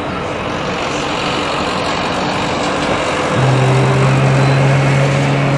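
Jet engines of a narrowbody airliner running at power, a steady wide roar that grows slightly louder, with a strong low steady hum joining about three and a half seconds in.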